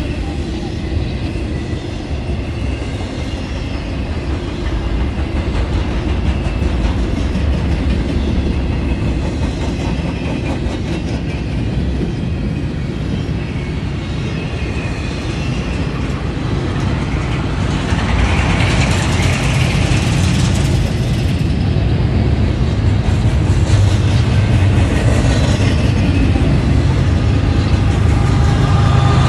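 Intermodal freight cars rolling past, steel wheels rumbling and clicking over the rail joints, with a brief brighter, hissing squeal from the wheels about two-thirds of the way through. Near the end a low engine drone grows louder as a mid-train CSX locomotive draws level.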